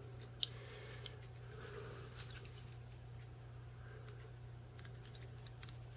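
Faint rustles and ticks of fingers handling fly-tying materials at the vise, over a steady low hum, with one sharp click about half a second in.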